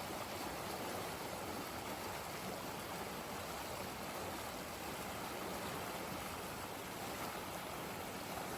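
Steady flowing water of a stream, an even, unbroken rush.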